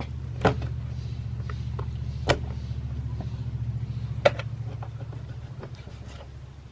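An engine running with a steady low, fast-pulsing hum that fades over the last couple of seconds, with three sharp clicks or knocks spaced about two seconds apart.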